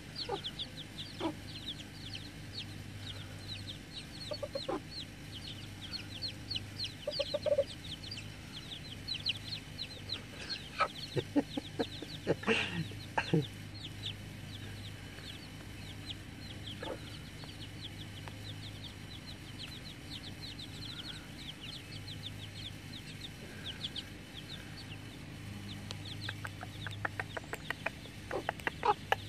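Chicks peeping in quick, high, continuous chirps, with occasional lower clucks from the hens pecking around them.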